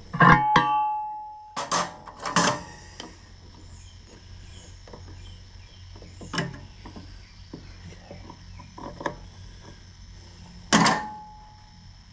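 Metal hand tools clanking against metal on a tractor's battery terminals: a loud ringing clang at the start, scattered lighter clanks, and another ringing clang near the end.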